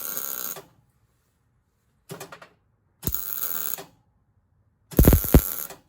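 Welder laying short tack welds on steel: four brief crackling bursts of arc, each under a second.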